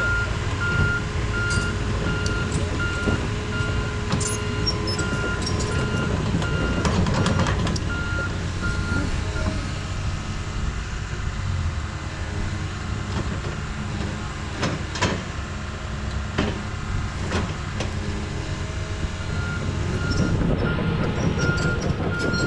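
A heavy machine's diesel engine running steadily, with its reversing alarm beeping at an even pace. The beeping stops about nine seconds in and starts again near the end. A few sharp knocks come in the middle.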